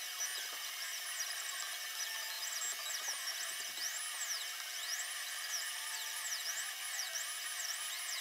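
Laser cutter's head-drive stepper motors whining in high tones that sweep up and down again and again as the head traces curves, over a steady machine hiss.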